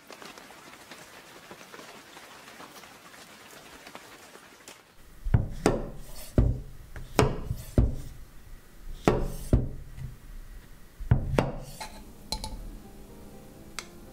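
Kitchen knife slicing mushrooms on a wooden cutting board: a run of sharp chops, each with a low knock on the board, about ten in seven seconds. The chops come in about five seconds in, after a soft steady hiss.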